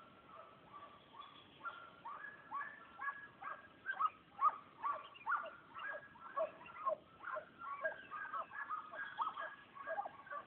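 A pack of hunting hounds baying: short, overlapping yelps from several dogs at once, sparse at first and coming thick and fast from about two seconds in.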